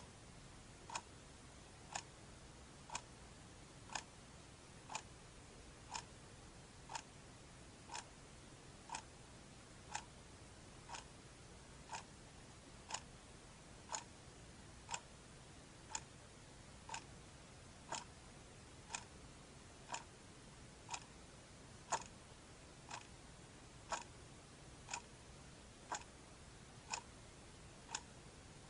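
A clock ticking steadily, one sharp tick each second, over a faint hiss.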